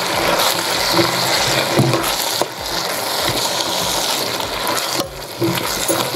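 Bottle gourd chunks being stirred through hot masala in a pan with a wooden spoon: a steady sizzle with the wet, sliding rustle of the vegetable pieces and light knocks of the spoon against the pan, easing off briefly twice between strokes.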